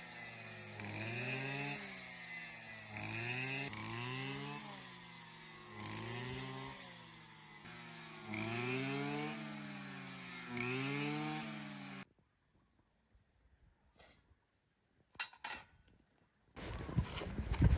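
Small engine of a handheld power tool revved up and dropped back about five times, each rev a rising whine, then cut off abruptly about twelve seconds in. Faint rapid ticking from insects follows, with a few clicks and a loud rustling noise near the end.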